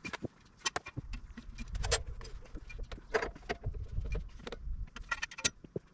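Scattered clicks, knocks and light rattles as a log is handled and positioned on a portable sawmill's bed, over a low uneven rumble.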